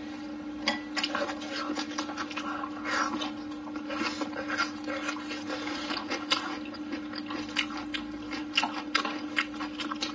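Close-miked chewing with wet lip smacks and mouth clicks coming irregularly, over a steady hum.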